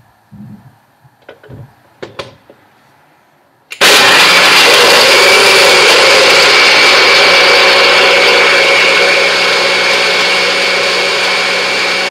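A few light clicks and knocks as the cup is fitted onto a personal cup blender's base. About four seconds in, the motor starts abruptly and runs steadily and loudly, blending kale, fruit, yogurt and almonds into a smoothie, easing slightly in level as it goes, and it stops at the very end.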